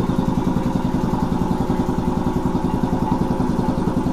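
Belt-driven piston air compressor running steadily, its pump giving a fast, even pulsing chug.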